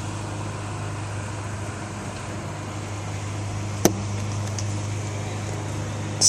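Steady low mechanical hum over a background hiss, with a single sharp click almost four seconds in.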